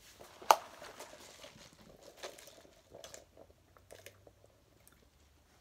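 A person chewing and crunching food close to the microphone, with a sharp bite about half a second in and then scattered softer crunches and mouth noises.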